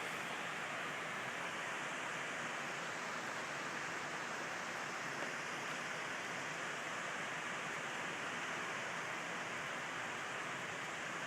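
Waterfall, the steady, even rush of falling water.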